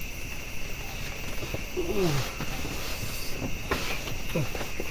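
Steady high chirring of night insects, with two short low sounds that fall in pitch, about two seconds and four and a half seconds in.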